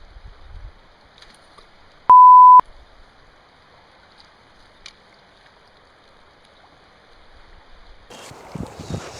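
A loud, pure, steady bleep tone lasting about half a second, over a faint steady hiss of flowing river water. Near the end a louder rushing noise with low rumbles comes in.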